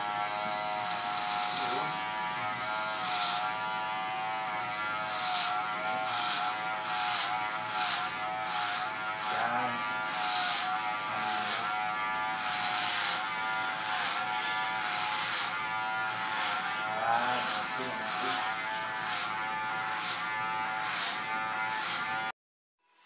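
Andis Master hair clipper with a number 4 guard buzzing steadily as it cuts hair, with a brief hiss about once a second as each stroke sweeps through the hair. The sound cuts off suddenly just before the end.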